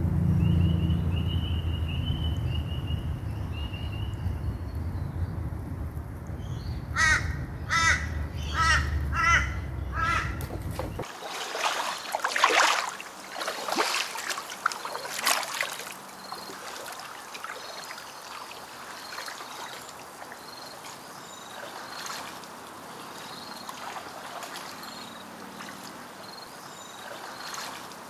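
A crow caws about five times in quick succession, about seven seconds in, over a low rumble. After that come kayak paddle strokes splashing, then a softer trickle of water.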